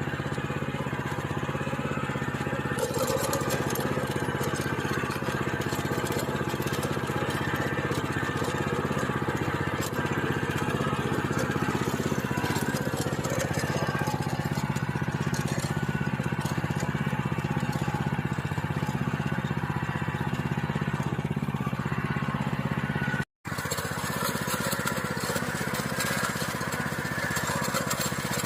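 Small engine of a walk-behind plowing machine running steadily under load as it tills stony soil. The sound cuts out for a split second about 23 seconds in.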